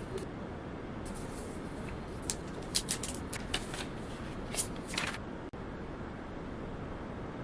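Phone packaging being handled: about four seconds of crisp paper and plastic rustling with several sharp clicks and snaps, then settling back to quiet room noise.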